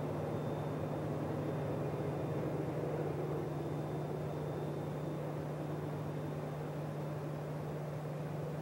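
Freight train of autorack cars rolling away along the rails: a steady low drone with rumbling wheel noise, slowly fading.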